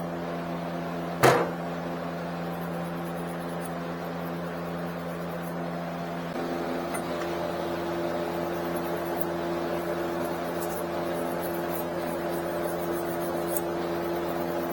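A steady mechanical hum with several fixed pitches, getting a little louder about six seconds in, with one sharp knock about a second in.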